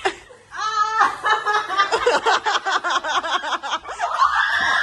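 Several people laughing loudly together in quick rhythmic bursts, after a short voiced shout just before a second in.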